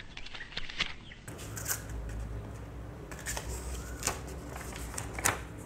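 Sheet of printer paper rustling and crackling in short, irregular crinkles as it is unrolled and handled.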